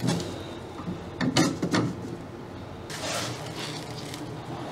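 Handling sounds of fiberglass panels and blocks being shifted and pressed into place in a boat hull: a few short creaks and knocks, then a scraping rustle from about three seconds in.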